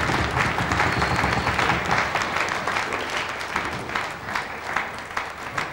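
Studio audience applauding, a dense patter of hand claps that slowly dies down.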